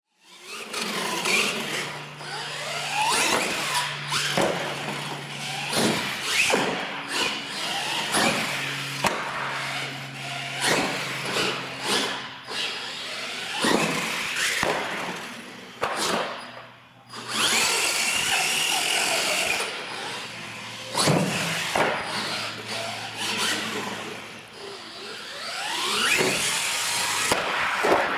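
Electric radio-controlled monster trucks driving hard: motors whining up and down in pitch as they throttle, with repeated thuds and clatters as the trucks land jumps and bang into ramps and the concrete floor.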